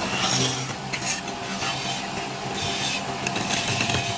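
Turning chisel cutting into a spinning wooden spindle on a lathe: a rough scraping hiss that swells and fades in uneven passes, over the steady hum of the running lathe.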